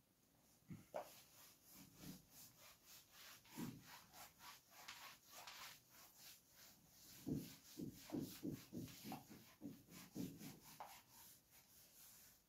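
Faint scratching and rubbing of handwriting strokes, short and irregular, with a quick run of strokes about seven to ten seconds in.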